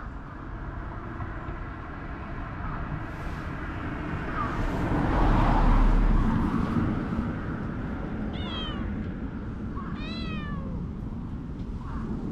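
A cat meowing twice, a short meow about eight seconds in and a longer one that rises and falls about two seconds later. Underneath is steady outdoor background noise, with a broad rush that swells and fades around the middle.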